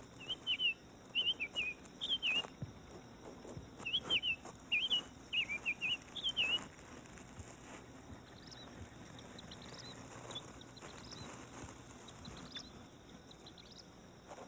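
A small bird chirping in quick groups of short, downward-sliding notes through the first six and a half seconds, then only fainter, higher chirps.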